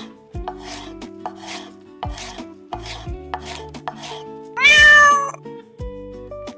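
A single loud cat meow lasting under a second, about two-thirds of the way in, over background music with a steady beat.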